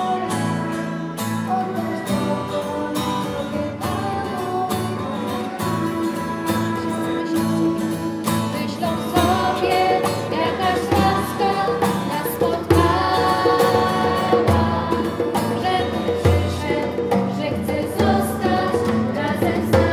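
A girls' church choir (schola) sings a song in unison to strummed acoustic guitars. The accompaniment grows fuller and louder about halfway through.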